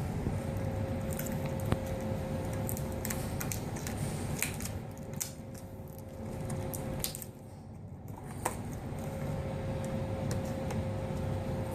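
Scattered light clicks and rubbing of the laptop's LCD panel and plastic screen housing being handled as the old screen is worked out, over a steady low hum.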